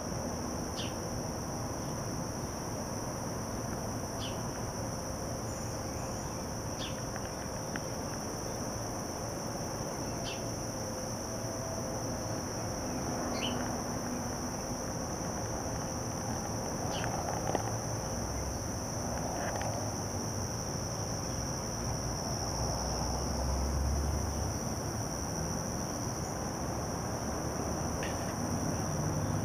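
A chorus of insects, a steady high-pitched drone that runs unbroken, with short falling chirps every few seconds and a low rumble underneath.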